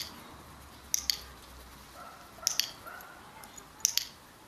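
Sharp clicks in quick pairs, a pair about every second and a half.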